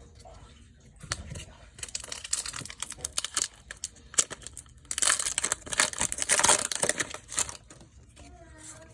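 Foil wrapper of a Pokémon trading-card booster pack crinkling and tearing open. Scattered crackles come first, then a louder, dense stretch of crinkling about five seconds in that lasts two or three seconds.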